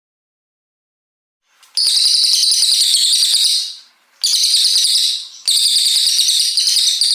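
Cililin coklat songbird singing in three long, loud, high-pitched bursts of rapid twittering notes, starting about a second and a half in, with short pauses between bursts.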